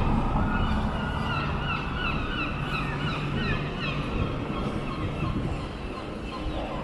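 A bird calling a rapid series of short, hooked notes, about three or four a second, for several seconds, over a low steady rumble of town traffic.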